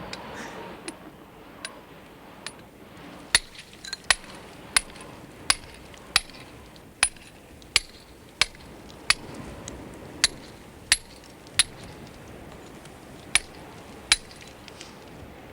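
Hammer blows on the brickwork at the base of an industrial chimney being cut out for felling: a sharp, ringing clink about every three-quarters of a second, faint for the first few strokes, then loud, with a couple of short pauses.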